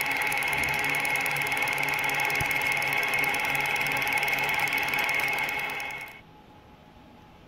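100W JPT MOPA fiber laser marking machine engraving aluminum: a loud, dense high-pitched buzz of very fast crackling pulses with a steady whine. It cuts off sharply about six seconds in.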